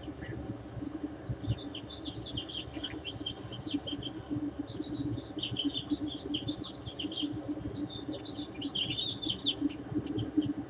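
Small birds chirping and twittering in quick runs of short high notes, over a steady low rumble.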